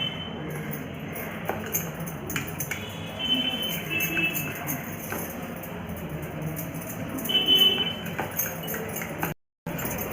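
Spoon stirring wheat-flour and red banana batter in a bowl, with repeated clinks and scrapes against the bowl and a few short ringing clinks.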